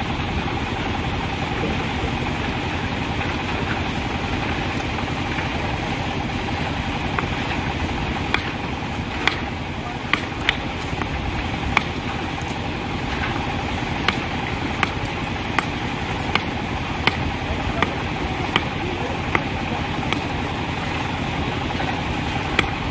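An engine running steadily, with sharp hammer blows on stone: the blows start about eight seconds in and come at an even pace, about one every three quarters of a second.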